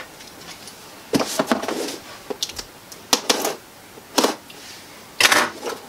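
Scissors cutting into the tape and cardboard of a laptop box: a series of short, scratchy snips and scrapes, about one a second.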